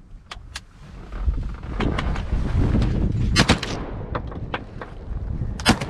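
Shotgun blasts from a duck blind: several shots in quick succession about three and a half seconds in, and one more near the end. Wind rumbles on the microphone throughout.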